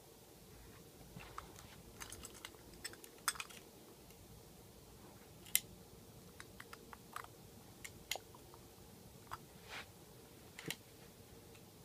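Faint, irregular clicks and light knocks of a small metal-and-plastic diecast toy front-loader garbage truck and its toy dumpster being handled, as the truck's forks lift the dumpster and it is set down.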